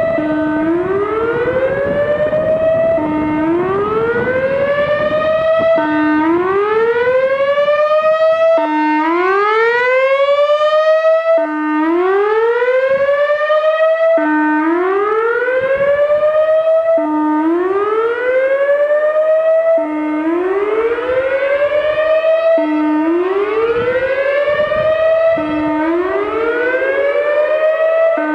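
Whelen WPS 3016 single-tone electronic warning siren sounding its whoop tone: a short low note that sweeps up in pitch and levels off, repeated about ten times, roughly every three seconds. The siren is malfunctioning during the whoop, which the uploader suspects could be a blown speaker driver.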